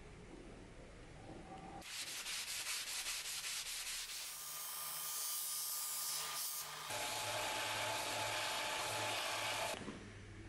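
Steel dagger blade being worked in short cut-together takes: about two seconds of quick, evenly repeated scraping strokes, then a belt and disc sander running with the blade pressed to its sanding disc, a steady grinding hiss over a faint motor hum that drops away near the end.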